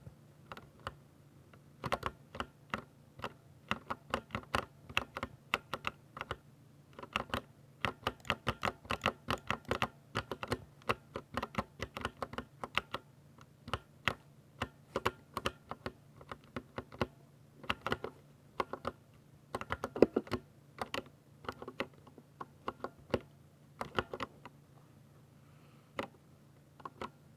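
Typing on a Ducky 60% mechanical keyboard with silver linear switches: quick runs of sharp keystrokes broken by short pauses, over a faint steady low hum.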